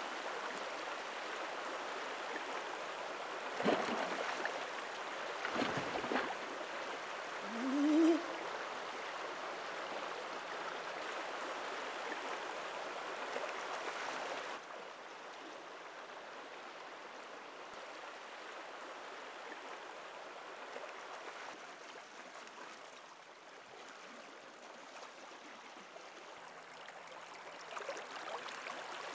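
River water rushing steadily over a shallow stony bed. A few brief louder sounds come in the first third, along with a short rising tone about eight seconds in. The rushing drops to a quieter level about halfway through.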